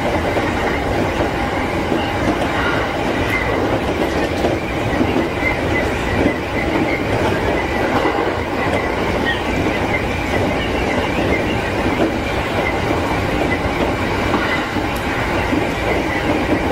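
JR East E231-series electric train running steadily along the track, heard from inside the leading car: a continuous rumble of wheels on rail.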